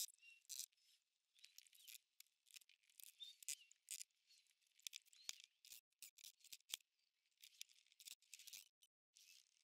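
Near silence, broken by faint, scattered high-pitched clicks and ticks.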